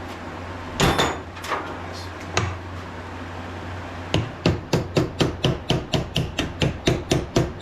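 Hammer blows driving a new bearing into a 2-inch grinder platen wheel to seat it. Three or four spaced taps come first, then from a little past halfway a quick, even run of about four sharp blows a second.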